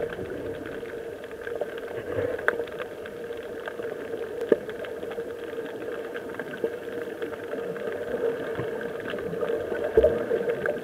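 Underwater ambience picked up by a submerged camera: a steady muffled drone with scattered clicks and knocks, the loudest knock about ten seconds in.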